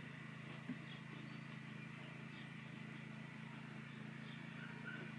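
Faint steady low hum, with a single light tick about two-thirds of a second in.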